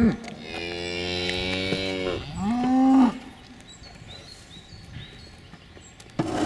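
Nantaise cows mooing: one long, level moo about half a second in, followed by a shorter moo that rises in pitch, about three seconds in.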